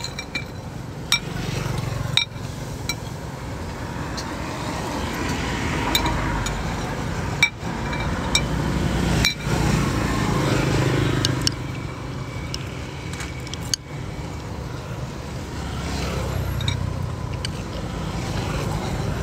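Road traffic going by: a low engine rumble that swells and fades several times. A few short clinks of chopsticks and a spoon against a ceramic soup bowl come through it.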